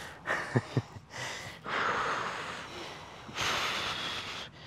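A person breathing heavily, with three long noisy breaths. Two short, sharp sounds come close together about half a second in.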